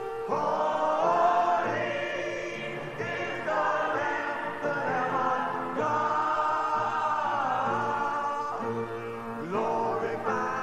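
Gospel music: a choir singing long, held notes in phrases that break off and start again every few seconds.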